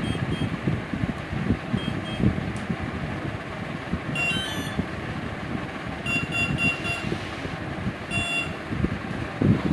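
Electronic speed controller of an RC hovercraft beeping as its battery is connected: a quick run of tones about four seconds in, a row of four even beeps a couple of seconds later, and another short beep near the end, over a steady low background hum.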